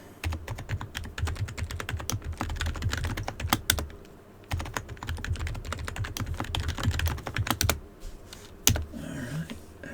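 Rapid typing on a computer keyboard in two quick runs of key clicks with a brief pause about four seconds in, then a single key press near the end.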